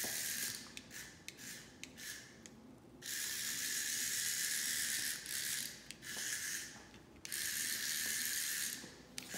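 A remote-control toy cockroach's small electric motor and gears whirring with a thin, hissy buzz as it is driven across a tile floor, in stop-start runs, the longest about two seconds.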